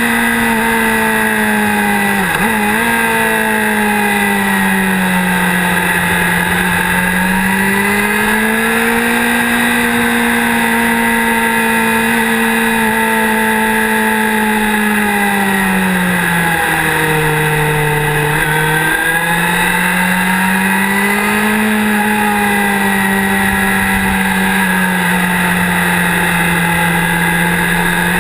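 Motorcycle engine under way, heard from on the bike, its pitch rising and falling smoothly as the rider rolls on and off the throttle through the bends, with a sudden step up in pitch about two-thirds of the way through. A steady wind rush runs underneath.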